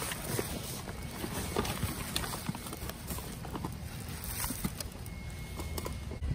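Scattered knocks and rustling of cardboard boxes and trash being shifted around in a dumpster, over a steady low rumble.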